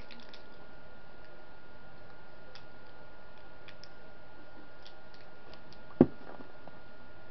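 Quiet room with a faint, steady high-pitched whine and a few faint scattered clicks, then one sharp knock about six seconds in as the camera is bumped.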